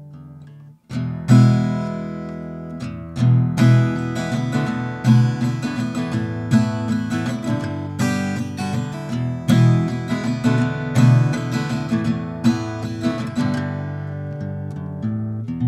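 A 2016 Guild M-20 acoustic guitar being played in a loose, improvised passage of picked notes and chords. An earlier chord rings out and stops, and the playing starts again about a second in.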